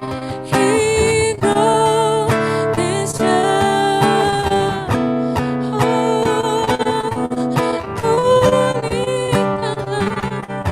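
Worship song played live: acoustic guitar strumming under a singer holding long, wavering notes.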